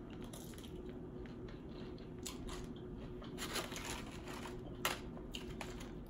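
Close-up chewing of crispy fried chicken: a scatter of short, crisp crunches and mouth clicks, a few of them louder about two, three and a half and five seconds in.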